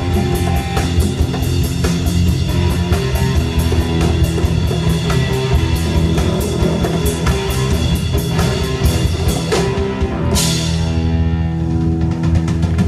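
Live amplified rock band playing: two electric guitars, bass guitar and drum kit, with a steady beat. About ten seconds in a cymbal crash marks a break, and the guitars and bass hold a ringing chord.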